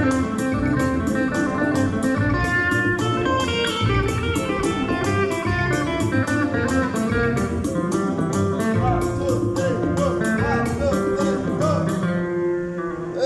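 Music with a steady beat and guitar, easing off in the last second.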